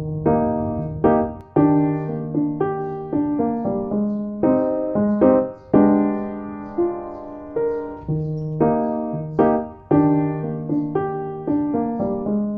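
Background piano music: a gentle melody of struck notes at an even pace.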